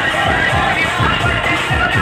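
Loud dance music played over a DJ sound system, with a fast, deep drum beat of about three strokes a second under a busy melody.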